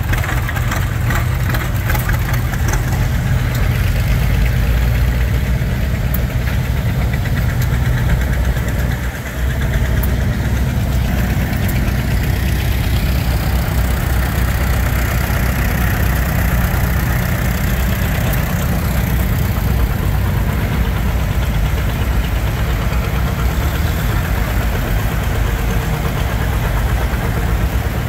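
Engines of antique farm tractors running as they drive slowly past one after another. At first it is a steel-wheeled John Deere two-cylinder with an even beat of firing pulses, and later Farmall tractors.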